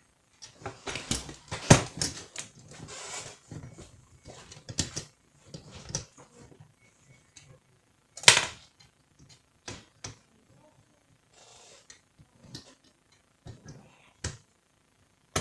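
Metal and plastic parts of a Canon iR2016/iR2018 photocopier fuser unit knocking, clicking and rattling as the unit is handled and parts are fitted back on. There is a stretch of rubbing and rattling in the first few seconds, then scattered clicks, with one sharp knock about eight seconds in.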